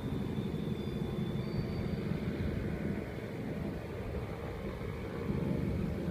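Antonov An-2 biplane's nine-cylinder radial engine running at full takeoff power, a deep steady drone. It dips a little midway and grows louder again near the end as the plane lifts its nose off the runway.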